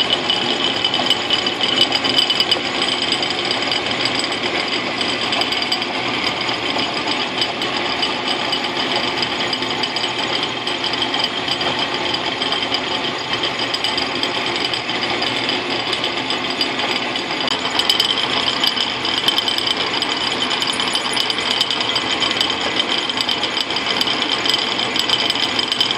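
Logan metal lathe running as a mill, its end mill taking small hand-fed cuts in a metal block: a steady, rapid chatter from the cutter over the running machine, with steady high-pitched tones. It grows a little louder about two-thirds of the way through.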